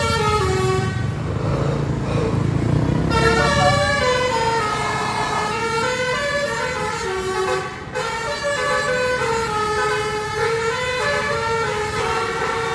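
Bus telolet horn (Basuri multi-tone air horn) playing a melody in stepped notes, with a low rumble under it for the first few seconds and a brief break about two-thirds of the way through.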